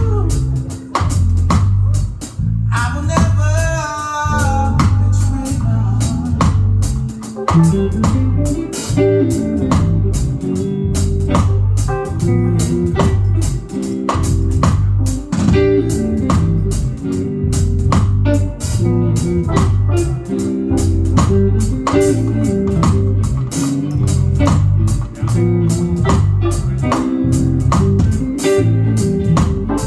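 Live band playing an instrumental groove: guitar over a busy bass guitar line and drum kit, with a short bending sung or played phrase a few seconds in.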